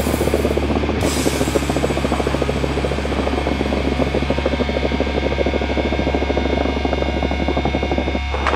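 Loud heavy metal music with fast, dense drumming over a steady low hum.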